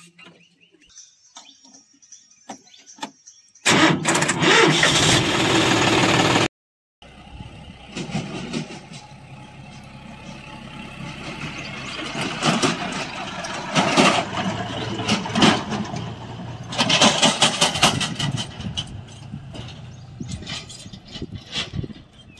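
John Deere tractor's diesel engine: a loud burst of engine noise about four seconds in that cuts off abruptly, then the engine running steadily as the tractor pulls a loaded trolley, with rattles and swells in engine speed.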